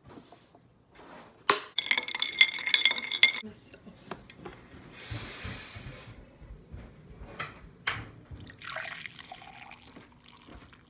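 Kitchen sounds: a sharp clink and a short ringing from a glass jar full of ice, then liquid poured, ending with hot coffee poured from a glass carafe into a mug.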